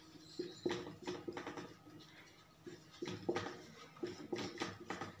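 Dry-erase marker scratching across a whiteboard as a word is written, in three short spells of quick strokes.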